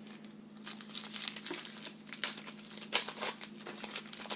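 Plastic trading-card pack wrapper crinkling and crackling as it is handled and torn open, a dense run of crackles starting about half a second in.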